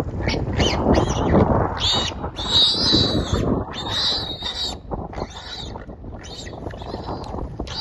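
Warthog squealing in distress as a lioness catches and holds it: a dozen or so high-pitched shrieks, some short and some drawn out, over a low rumble of wind on the microphone.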